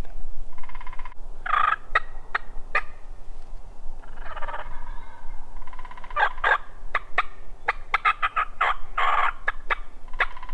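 Wild turkeys calling: several gobbles a few seconds apart, with short sharp clucks in between.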